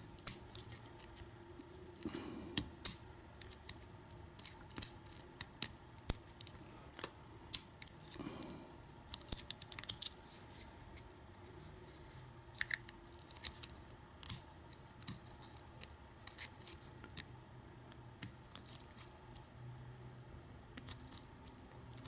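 Metal lock pick and tension wrench clicking and scraping on the pins of a pin-tumbler lock during single-pin picking: a scatter of sharp, light clicks at irregular intervals.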